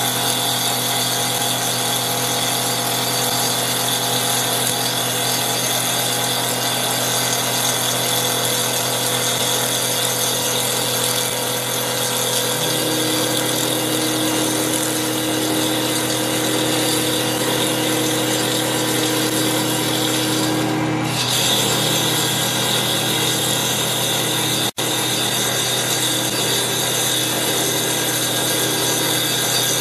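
CNC wood lathe cutting a spinning baseball bat blank with a motor-driven circular saw blade instead of a carbide cutter: a steady whine with the hiss of the blade shaving wood, the spindle at 3000 RPM. The sound cuts out for an instant about 25 seconds in.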